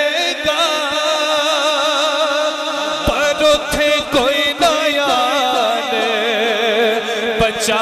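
Male voice singing a Punjabi naat through a microphone and PA, drawing out long wavering notes over a steady drone. A few sharp knocks come between about three and four and a half seconds in.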